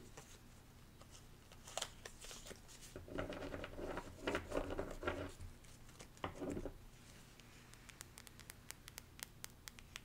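A stack of thin paper cards being handled and shuffled, with a dense rustling stretch in the middle. Near the end it gives way to a run of quick, sharp taps of long fingernails on a card, several a second.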